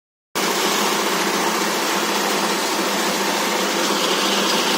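Feed pellet mill driven by a 22 hp diesel engine, running steadily: a loud, even mechanical drone with a low hum. It cuts in abruptly just after the start.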